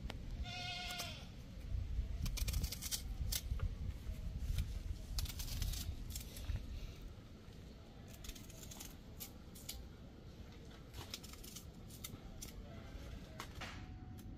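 An animal bleats once near the start, a wavering call about a second long. After it come scattered sharp clicks of a knife cutting against a board, over a low rumble.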